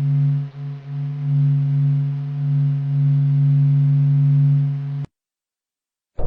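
Electronic sonification of astronomical data: a steady, low pitched drone with a few overtones above it, with a brief dip near the start. It cuts off suddenly about five seconds in.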